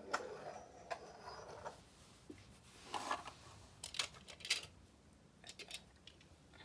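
Faint scattered clicks and soft rustling, about a handful of sharp clicks over several seconds: small objects being handled.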